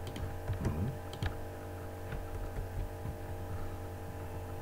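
A few scattered computer mouse and keyboard clicks, most in the first two seconds, over a steady low electrical hum.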